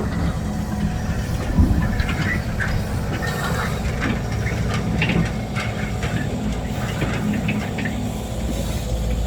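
Diesel engine of a working excavator running steadily. There is a heavy thud about a second and a half in, and short high squeaks and clinks come and go through the middle.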